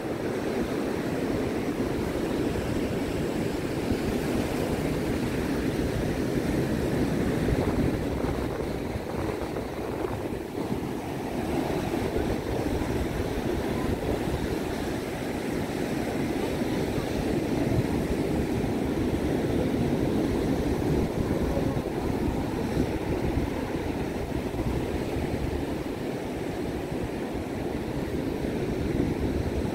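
Ocean surf washing onto a sandy beach as a steady, unbroken rush, with wind buffeting the microphone.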